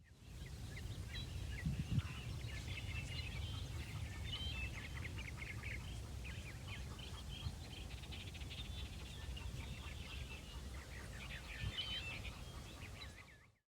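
Outdoor ambience of many small birds chirping and twittering over a steady low rumble, with a couple of faint thumps; it fades in at the start and fades out just before the end.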